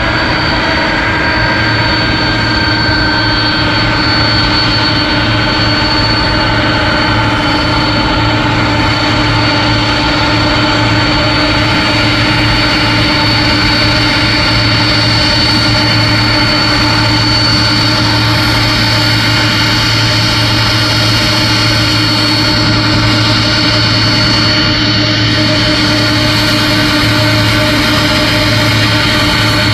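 Boeing 747-400F's four turbofan engines running at idle thrust during taxi, a loud, steady high whine over a low drone.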